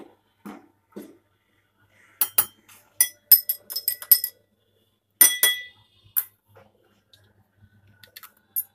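A spoon stirring sugar syrup in a drinking glass, clinking against the glass with short ringing chinks. There are a few soft knocks in the first second, then a quick run of clinks from about two seconds in, and a few more around five to six seconds.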